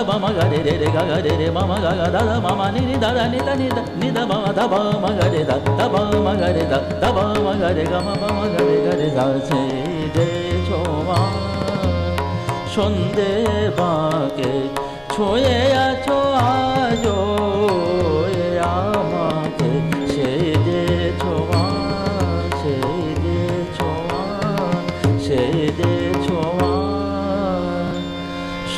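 Bengali khayal sung by a male voice in long, winding melismatic phrases, accompanied by harmonium, a tanpura drone and tabla.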